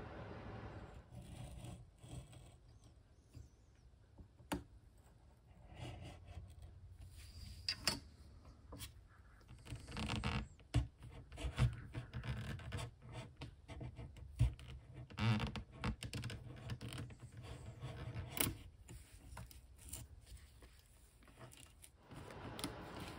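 Hobby knife cutting and scraping through old wood veneer and its substrate layer on a radio cabinet. It makes irregular scratching strokes broken by sharp clicks as the blade bites and the pieces come away.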